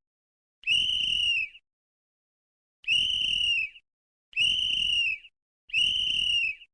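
A whistle blown in four long blasts of about a second each, at uneven gaps. Each blast holds one steady, shrill pitch that dips slightly as it cuts off.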